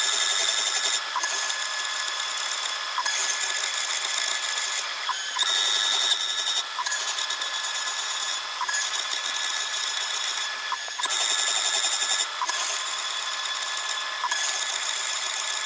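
Genmitsu ProverXL desktop CNC spindle whining as a thread mill cuts threads into holes in an aluminium plate, played back sped up. The whine breaks off and restarts with a short change in pitch about every two seconds as the machine moves from one hole to the next.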